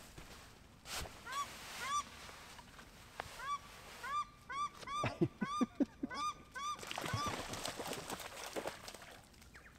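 Paradise shelducks giving alarm calls at a dog: a run of repeated rising-and-falling honks, about three a second, with a few deeper calls mixed in, starting about a second in and stopping about seven seconds in.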